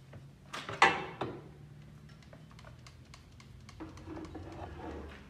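Hand trigger spray bottle squeezed to spray rust-remover gel onto a dirt bike exhaust pipe: loud short spray hisses about a second in, with light clicks and taps of the trigger and bottle throughout.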